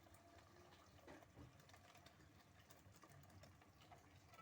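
Near silence: faint room tone with a few scattered faint ticks.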